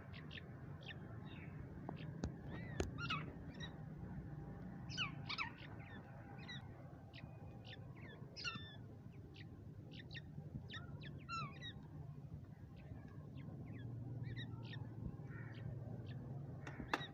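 Young francolin (teetar) chicks giving short, high-pitched chirps that come irregularly throughout, as they spar. A steady low hum runs underneath.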